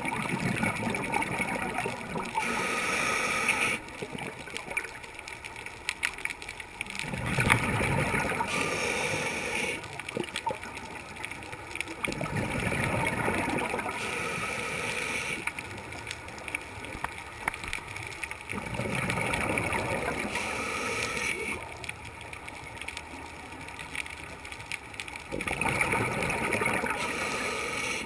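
Scuba diver breathing through a regulator underwater: bursts of exhaled bubbles gurgling and rushing alternate with the hiss of inhaling. There are about five breaths, roughly one every six seconds.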